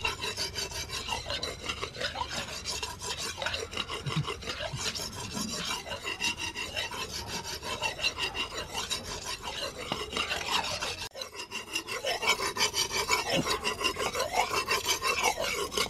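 Steel being abraded by hand in rapid, steady back-and-forth rasping strokes, with a short break about eleven seconds in.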